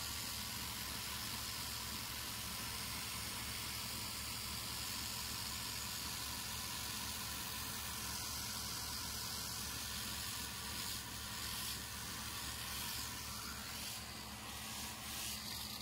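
Small RC car's electric motor and gears running at a steady speed, with an even whirring hiss; it eases off slightly near the end.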